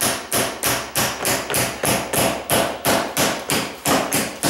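A hammer tapping a stiff putty knife, steady strikes about three a second, driving the blade under the rim of a cast iron kitchen sink to break its putty seal and loosen it from the countertop.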